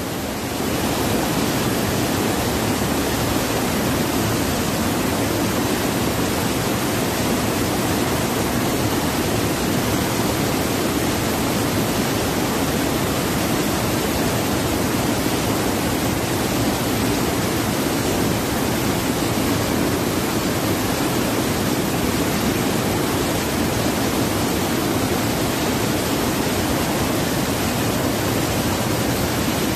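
Steady rush of river water pouring over a low, wide waterfall and churning across rocks.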